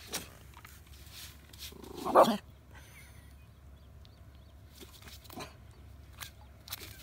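A dog barks once about two seconds in, the loudest sound here, with a few small clicks and rustles around it.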